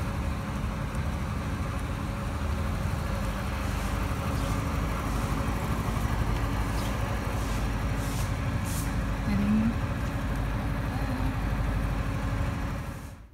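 A motor vehicle's engine running, a steady low rumble with a faint constant hum, which cuts off suddenly near the end.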